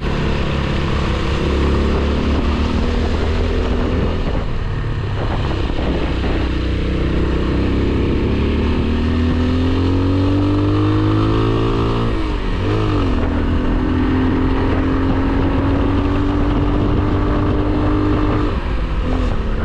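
AKT TT 200 DS motorcycle's single-cylinder engine pulling under way, with wind and road noise. Its pitch climbs, drops at a gear change about twelve seconds in, rises slowly again and dips once more near the end.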